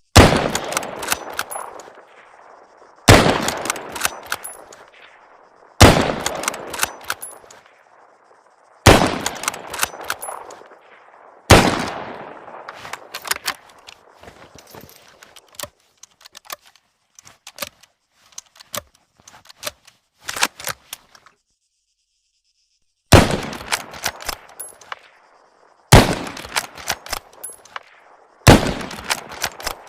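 M1891 bolt-action rifle fired eight times, each sharp shot about 3 s apart, ringing out and followed by a few metallic clicks. After the fifth shot there are about ten seconds of scattered clicks and rattles with no firing, then a brief silence before three more shots.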